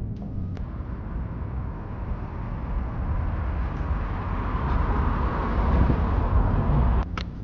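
Road traffic: a passing vehicle's tyre and engine noise swells over several seconds over a steady low rumble, then drops off sharply about seven seconds in.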